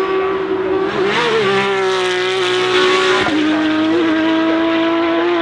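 Porsche engine running hard at high revs, its pitch held nearly steady; it drops slightly about three seconds in and then climbs slowly.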